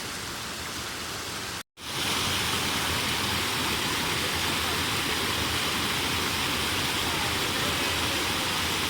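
Waterfall on a small river, its falling water making a steady rushing noise. The sound cuts out completely for a moment a little under two seconds in, then comes back louder and brighter.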